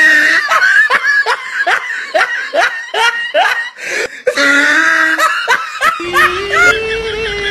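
A person laughing in a quick run of short 'ha' pulses, about four a second, each dropping in pitch. About six seconds in, music with a long held note comes in.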